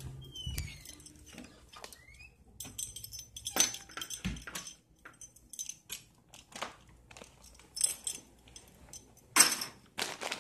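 Irregular clicks, clinks and rustles of close handling: keys jangling and a Doritos bag crinkling, with a couple of short squeaks about a second in.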